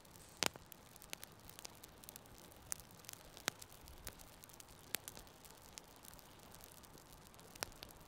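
Wood campfire crackling: irregular sharp pops and snaps from the burning split sticks, the loudest a quick double pop about half a second in, over a faint steady hiss.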